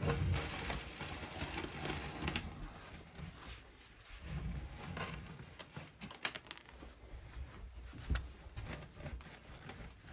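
Ashes being scraped and scooped out of a wood stove's ash box that is packed full, a scratchy rustle with scattered clinks and knocks.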